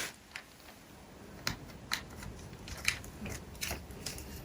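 Camera handling noise: irregular small clicks, taps and rubbing as the camera is taken off its mount and moved.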